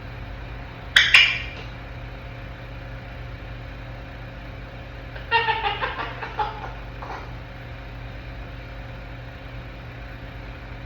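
African grey parrot vocalizing on its own: a sharp click and a short high call about a second in, then a choppy run of chattering, whistle-like calls around the middle, over a steady low hum.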